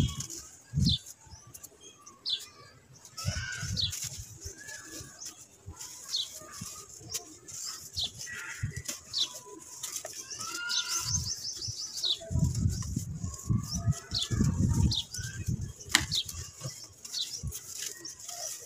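Hands squeezing and crushing soft lumps of red dirt, with dull gritty crunches and crumbling rustles, heaviest in the second half. Small birds chirp in the background.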